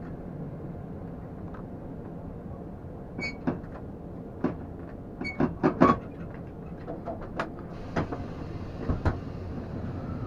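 Metro train heard from inside the driver's cab, a steady low rumble, with a string of short sharp clicks and knocks from about three seconds in.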